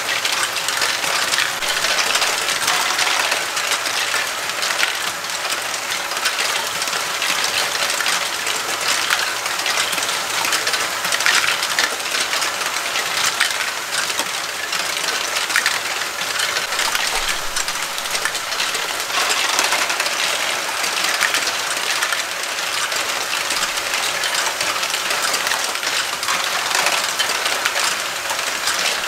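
Lego Great Ball Contraption modules running: a dense, continuous clatter of small plastic balls rolling, dropping and knocking through Lego Technic lifts and tracks, over the steady whir of the Lego motors and gears driving them.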